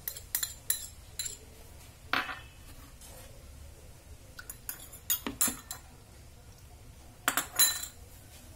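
Chopsticks and a metal spoon clinking against a stainless steel mixing bowl and small dishes, in short clusters of sharp clicks. The loudest clinks come near the end.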